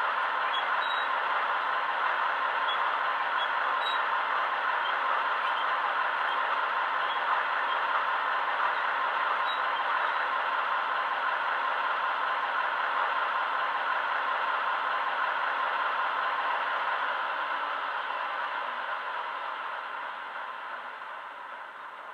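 A Class 15 diesel locomotive's engine sound from a DCC sound decoder, playing through the model's small speaker as the locomotive stands still, steady, then fading away over the last few seconds.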